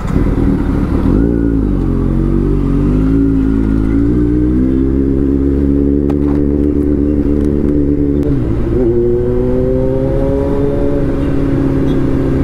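Kawasaki Z900's inline-four engine, fitted with a loud aftermarket exhaust, running steadily under way. Its pitch dips briefly about a second in and again around eight seconds in, then holds a little higher.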